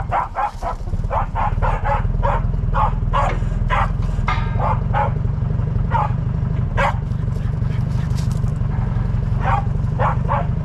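A dog barking over and over in short barks, about two a second at first and more spaced out later, over the steady low running of a heavy machine's engine.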